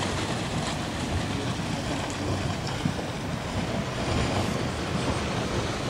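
Wind buffeting the microphone: a steady rushing noise with an uneven low rumble.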